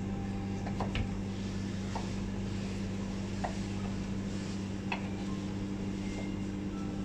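A knife slicing raw tuna loin on a white cutting board, with a few light taps of the blade on the board, over a steady low hum.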